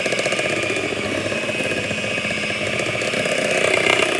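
Electric mixer with a whisk attachment running steadily, beating cake batter, a little louder near the end.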